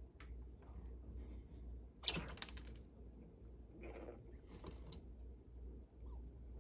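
Cat's paws rattling and scraping against the wire bars of a pet cage in two short bursts, about two seconds in and again about four seconds in, over a faint low hum.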